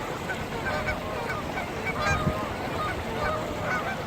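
A large flock of geese honking, many calls overlapping into a continuous chorus.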